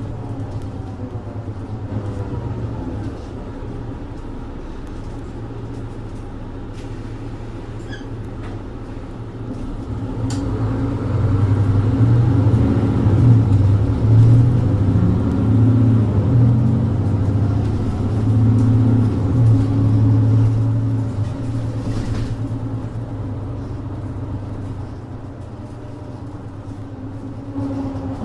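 Mercedes-Benz Citaro 2G city bus heard from inside, its OM470LA six-cylinder diesel and ZF EcoLife automatic gearbox running. A whine falls in pitch in the first few seconds. About ten seconds in, the engine grows louder as the bus pulls away under power, and it eases off again after about twenty seconds.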